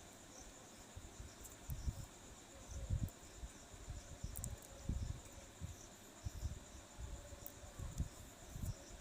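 Faint, steady high chirring like crickets, with irregular low bumps and thuds of handling close to the microphone while a circuit board is being soldered.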